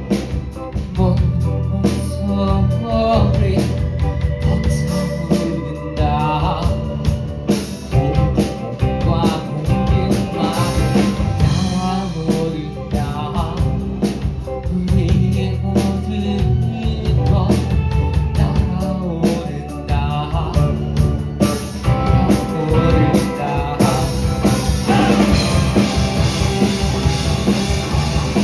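Indie rock band playing live: drum kit, bass and guitar, with a wavering melodic line on top. Near the end the cymbals and drums grow denser and the music builds.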